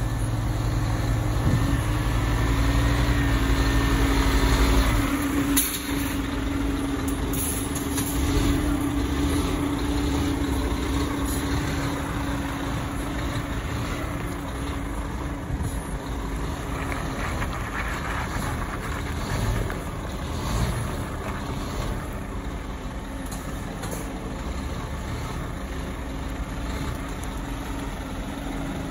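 Scania G480 tractor unit's 13-litre straight-six diesel idling steadily, the low rumble heavier for the first five seconds.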